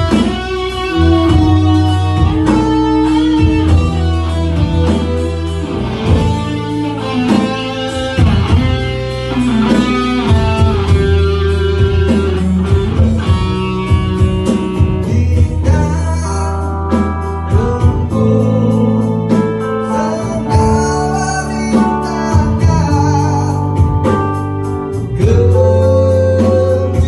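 Electric guitar lead soloing with string bends and fast runs, over bass guitar, keyboard and electronic drums in a live band jam.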